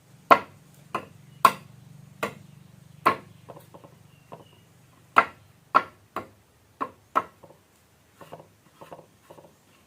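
Sharp, uneven clicks and knocks, about twenty of them, from hand work with black peppercorns for a homemade cough remedy. They are loud for the first several seconds and fainter and sparser near the end. A low hum runs under the first half and fades out.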